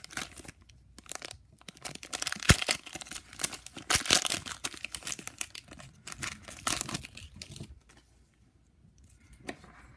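Foil wrapper of a Pokémon trading card booster pack crinkling and tearing as it is opened by hand, in irregular crackles with a few sharp snaps; it dies away about eight seconds in.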